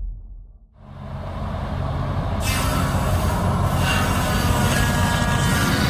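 Heavy machinery running, building up over the first two seconds into a loud, steady noise with a high squealing whine from about two and a half seconds in.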